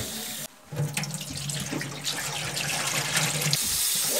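Kitchen tap running water into a steel bowl of chicken pieces being rinsed by hand: a steady splashing rush. It breaks off briefly about half a second in, and a steady low hum runs under it for about three seconds.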